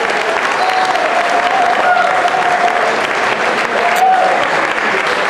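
Audience applauding and cheering at the end of a live band's song, with a few drawn-out shouts held above the clapping.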